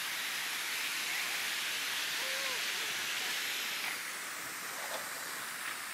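Water jets of a large fountain spraying and splashing down into a pond, a steady hiss that gets a little quieter about four seconds in.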